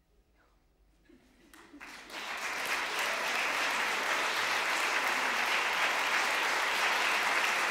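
Audience applause after the choir's final chord. It opens near silence, with a few scattered claps about a second and a half in, then swells within a second into steady, dense applause that carries on to the end.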